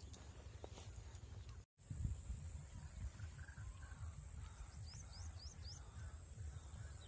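Outdoor riverside ambience: a low steady rumble, a thin steady high whine, and a quick run of four small bird chirps about five seconds in. The sound cuts out completely for an instant just before two seconds in.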